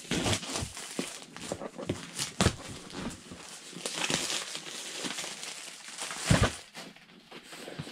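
Cardboard box and its packing being opened and handled: rustling and crinkling wrapping with irregular knocks and taps, the loudest about two and a half and six seconds in.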